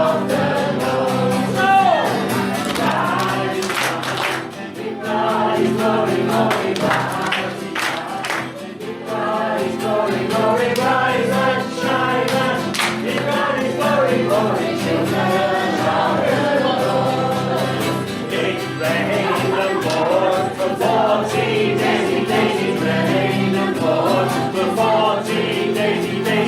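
A group of voices singing a Christian song together over accompanying music.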